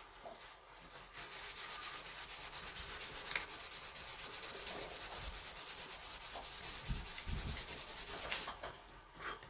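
Sandpaper rubbing over a painted plastic body panel in rapid, even strokes, scuffing the paint down before primer. It starts about a second in and stops near the end.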